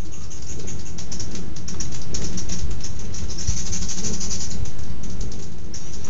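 Many hummingbirds chittering around a feeder: a dense run of rapid, high-pitched chips and twitters over a steady low rumble.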